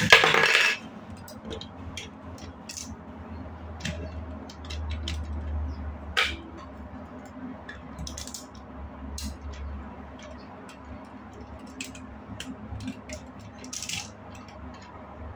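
Small plastic building-block pieces clicking, tapping and snapping together as they are handled, in scattered sharp clicks, with a louder rattling burst at the very start. A low hum rises for a few seconds in the middle.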